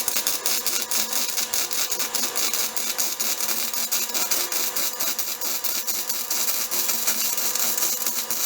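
Welding arc crackling steadily while a continuous bead is laid on the steel frame, a dense rapid sizzle with no break.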